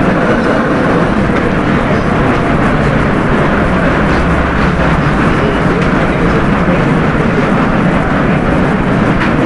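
Steady, loud rumbling background noise with no speech in it.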